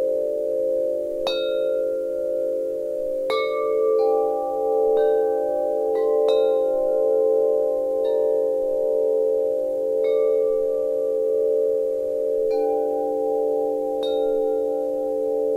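Wind chimes ringing: a steady bed of low, slowly pulsing chime tones, with a new note struck every second or two that rings on for several seconds.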